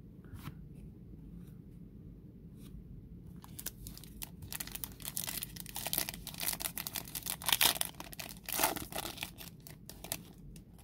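Foil trading-card pack wrapper being torn open by hand: a run of crinkling and ripping that starts about a third of the way in and is loudest toward the end.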